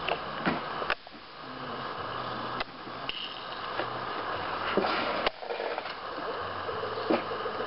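A Roundhouse G-scale live steam model locomotive standing with a steady hiss, broken by several sharp clicks and knocks.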